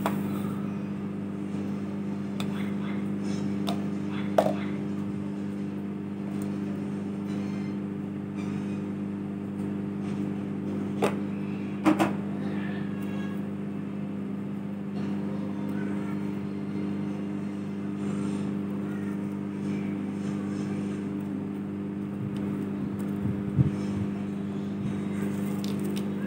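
Kenstar KJ20CBG microwave oven running on its microwave setting, a steady hum from the magnetron and fan with the turntable turning, while peanuts roast inside. A few short sharp clicks sound over the hum.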